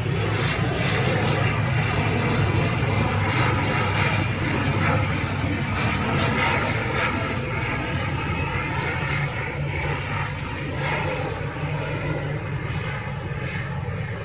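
ATR 72-600 twin turboprop on final approach with gear down: a steady drone from its Pratt & Whitney PW127M engines and propellers, with a strong low hum, easing slightly in level over the last few seconds.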